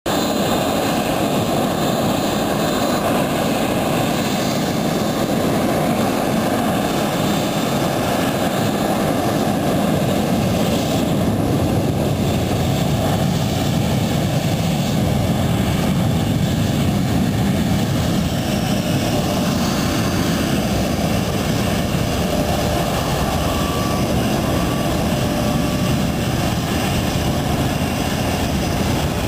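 Panavia Tornado's twin RB199 turbofan jet engines running steadily, a loud, even jet noise with most of its weight low.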